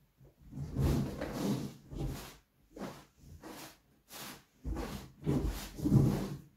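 Inflated exercise ball creaking and rubbing under a person's weight as he sits on it and shifts about, in irregular bursts, the loudest near the end.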